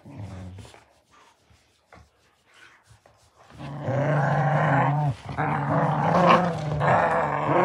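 Beagle puppies growling in play during a tug-of-war. A short growl at the start, a few quiet seconds with faint scuffling clicks, then a long continuous growl from about three and a half seconds in, broken once briefly.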